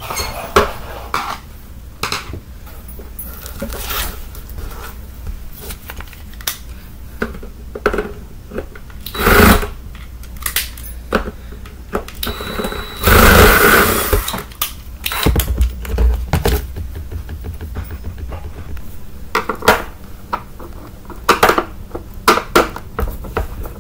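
Plastic clicks, knocks and scraping from the hard plastic body of a Bissell Powerforce Bagless upright vacuum as it is handled, turned over and unscrewed during disassembly. There are two louder stretches of rattling scrape near the middle.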